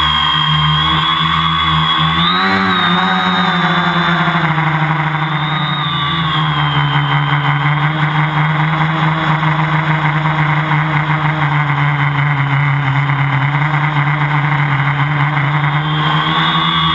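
Tricopter's electric motors and propellers running with a steady whine, heard from the onboard camera; the pitch rises briefly about two seconds in and again around six seconds as the throttle changes.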